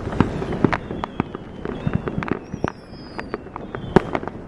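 Fireworks going off: a rapid, irregular string of sharp pops and bangs from many bursting shells, the loudest about four seconds in. Whistles run over the pops, the longest one falling slightly in pitch about two and a half seconds in.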